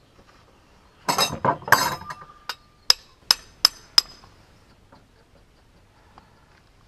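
Metal parts being handled: about a second in, a second-long clattering rattle, then four sharp, ringing metallic clinks a little under half a second apart.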